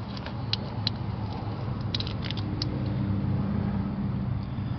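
A few light clicks and snips of wire strippers working on electrical wire, over a steady low mechanical hum.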